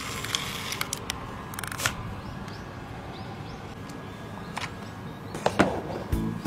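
Scattered light clicks and taps of small plastic toys being handled and set down on a table, the sharpest about five and a half seconds in. Background music with a steady beat starts near the end.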